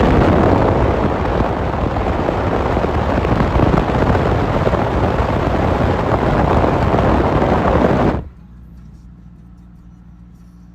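Deckless riding lawnmower's engine running hard close by, a loud rough noise that drops abruptly about eight seconds in to a much quieter steady engine hum.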